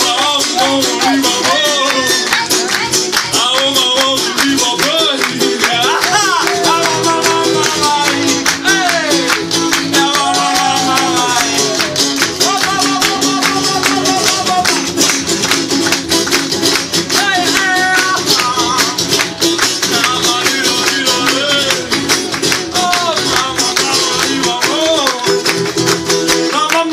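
Acoustic guitar strummed fast and steadily, with wordless singing carrying a gliding, wavering melody over it.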